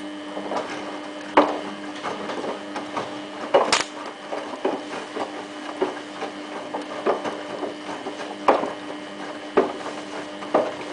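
Samsung WF8804RPA front-loading washing machine drum tumbling a load of jeans at the start of the wash: a steady motor whine that starts right at the beginning, with irregular knocks and thuds from the load falling in the drum.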